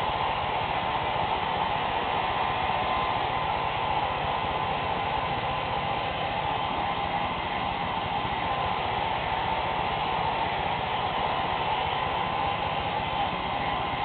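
Handheld hair dryer blowing steadily, an even rush of air that does not change.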